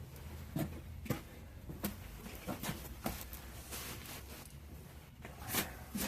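Scattered light rustles and small knocks at irregular intervals, as a ceramic fibre blanket and its packaging are handled.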